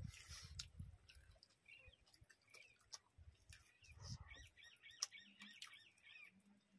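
Faint eating sounds from people eating rice and curry with their hands: soft chewing, mouth and finger clicks, and a couple of dull thumps. A small bird chirps a quick run of about eight high notes in the background a little past the middle.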